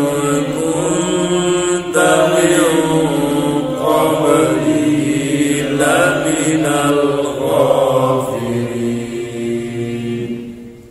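A man chanting Quran recitation in a melodic murottal style, holding long drawn-out notes that slide up and down in pitch, stopping near the end.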